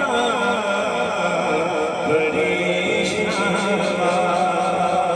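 Naat sung by male voices: a devotional melody chanted over a steady, choir-like hummed drone.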